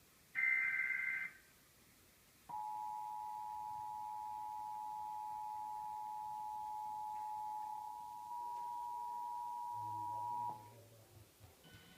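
Emergency Alert System broadcast: about a second of warbling SAME header data tones. After a short gap comes the two-tone EAS attention signal, a steady pair of tones near 853 and 960 Hz held for about eight seconds, which announces the voice message of a flash flood warning.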